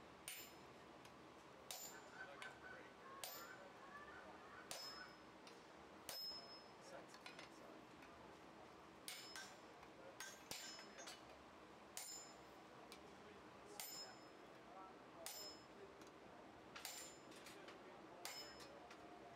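Hammer blows on a handled top tool set on a red-hot axe head on the anvil: sharp metallic clangs with a brief ringing tail, about one every second or so, some coming in quick pairs.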